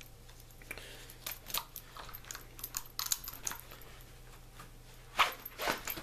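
Handling noise from a nylon gun belt being unbuckled and drawn out of trouser belt loops: soft rustling with scattered small clicks of the buckle and gear, and a louder cluster of scrapes and clicks a little after five seconds in.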